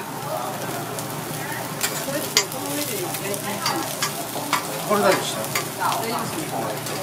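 Bean sprouts and shredded cabbage sizzling on a hot teppanyaki griddle, with a string of sharp clicks and scrapes as a spatula turns them against the iron.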